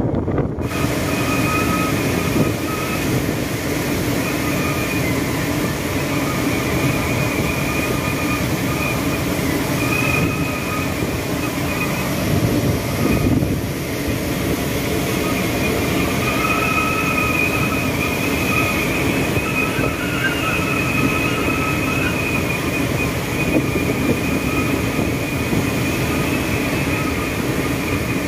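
Storm wind blowing across a squid-jigging boat's deck, a steady rush rumbling on the microphone, with a high wavering whistle through the rigging and wires that swells and fades.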